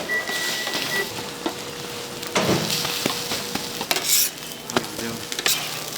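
Food sizzling as it fries, with utensils stirring and scraping against the pan and a few knocks scattered through.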